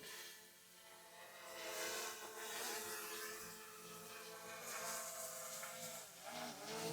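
DJI Mini 3 Pro quadcopter's propellers buzzing as it hovers close by. It swells about two seconds in, and the pitch dips and rises near the end as the drone manoeuvres.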